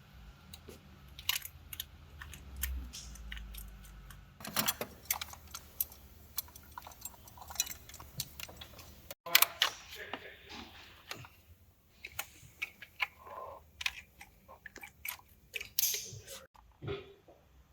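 Irregular clicks, clinks and knocks of hand tools on metal parts during diesel engine removal work, with a low steady hum under the first few seconds.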